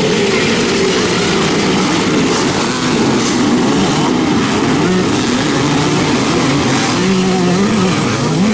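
Several classic motocross motorcycle engines revving, their pitches rising and falling and overlapping as the bikes race.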